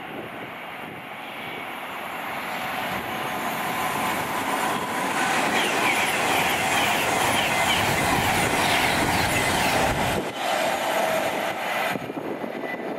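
A train passing on the main line: rushing wheel-and-rail noise that grows louder over several seconds, then drops off sharply about ten seconds in.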